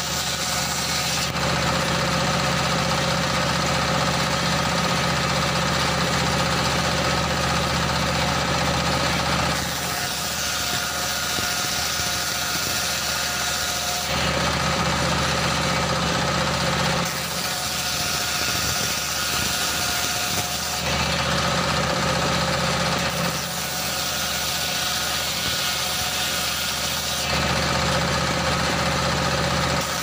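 Small stationary diesel engine running steadily, driving a large circular saw blade that rips wooden strips. Four cuts are heard: a long one from about a second in to nearly ten seconds, then three shorter ones, with the engine and spinning blade running on between them.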